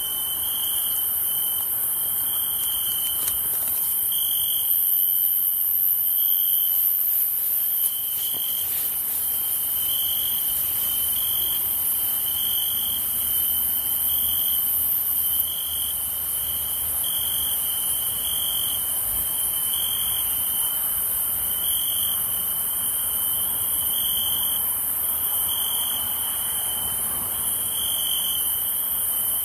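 Cricket chirping in an even rhythm, about once every second, over a steady high-pitched drone of insects.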